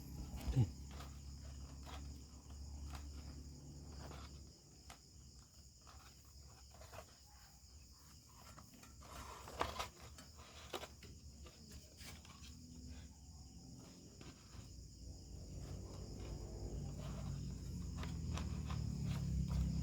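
Scattered small clicks and taps of hands handling parts, over a steady high insect chirring. A louder knock comes about halfway through, and a low hum grows louder near the end.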